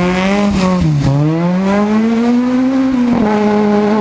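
Rally car engine under hard acceleration. Its note dips sharply about a second in, as at a gear change, then climbs steadily. About three seconds in it shifts abruptly and holds a steady pitch.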